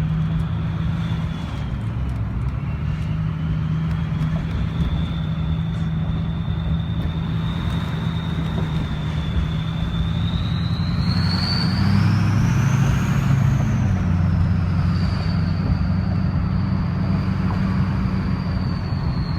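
Turbocharger whistling over a running engine's low rumble: a thin high whine that holds steady, then climbs in pitch as the engine gets louder a little past halfway, and eases back down near the end.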